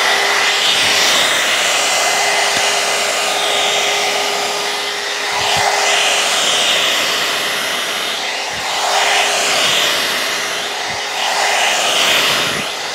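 Alan Truman hot-air blow brush running steadily as it is drawn through wet hair. The rush of air swells and dips with the brushing strokes, and a steady hum under it stops about three-quarters of the way through.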